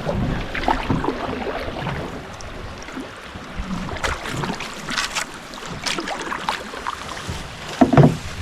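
Canoe paddling: paddles dipping and splashing in creek water in irregular strokes, with the loudest splash near the end.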